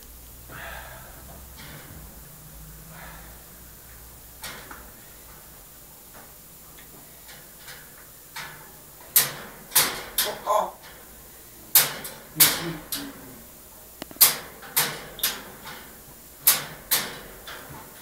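African grey parrot in its cage making a run of sharp clicks and knocks, about a dozen over the second half, with a few short vocal sounds among them.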